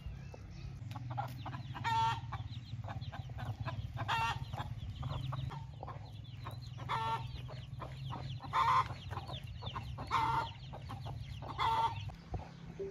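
A hen calling loudly about six times, a second or two apart, with her chicks peeping faintly in between.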